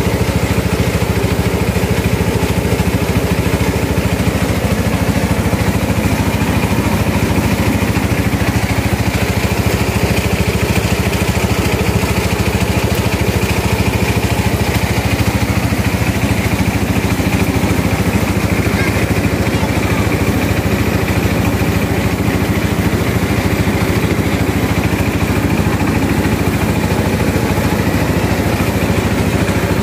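Rice mill machinery running steadily, a constant mechanical hum, with polished rice grains pouring out of its metal chutes into the bins.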